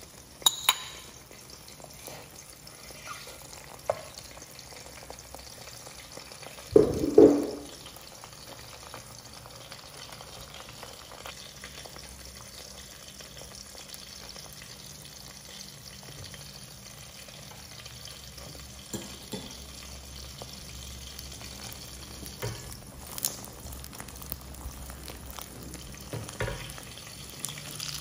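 A shrimp omelette frying gently in a nonstick pan with a faint, steady sizzle. A spoon and spatula against the pan add occasional light clicks, with one louder bump about seven seconds in.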